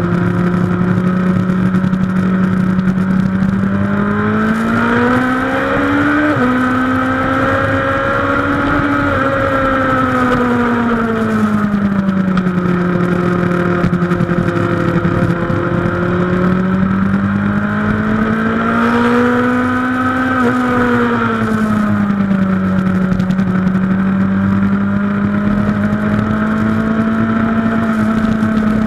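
Suzuki GSX-R 1000 K2's inline-four engine heard from on board at track speed, its pitch rising and falling several times as the throttle opens and closes through the corners, with a sudden break in the note about six seconds in.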